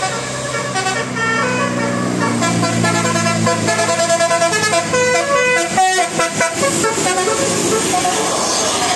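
Indonesian bus 'telolet' musical air horn playing a quick tune of short, stepped notes, over the low steady hum of the bus engine.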